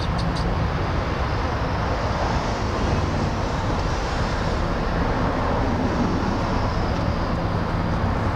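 Steady outdoor background noise: a constant low rumble and hiss with no distinct events.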